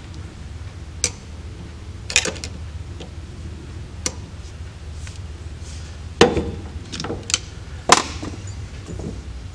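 Small irregular metal clicks and taps as a screwdriver and fingers work a wire terminal onto its screw on the breaker plate of a 1960s small-block Chevy distributor, the two loudest near the end. A steady low hum runs beneath.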